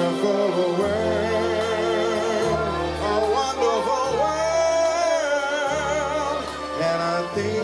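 Live soul-gospel singing with a backing band: a long, ornamented vocal line with wide vibrato, held over sustained bass notes that change every second or two.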